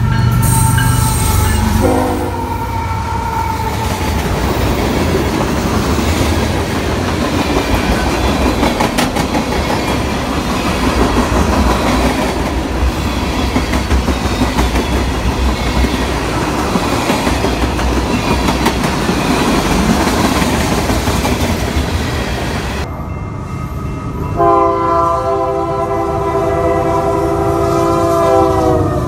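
Freight train rolling past close by, wheels and cars rumbling steadily, just after a diesel locomotive's horn chord ends in the first two seconds. Later a second freight train's diesel horn sounds one chord for about four seconds over the rumble of a double-stack container train, its pitch dipping slightly at the end.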